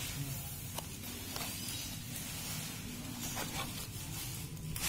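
Faint handling noise over a steady background hiss and low hum: a few light clicks and scrapes, about a second, a second and a half and three and a half seconds in, from the unpowered motherboard and its foam packing being touched and moved.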